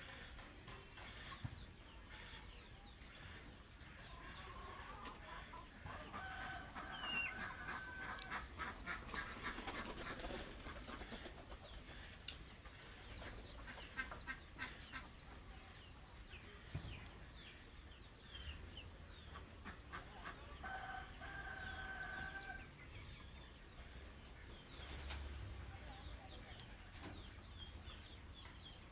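Chickens clucking, with a rooster crowing twice: once about six seconds in and again about twenty-one seconds in.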